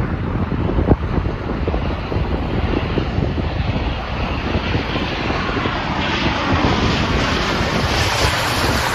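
Airplane engines growing louder as the aircraft approaches, their hiss swelling about halfway through, over heavy wind buffeting on the microphone.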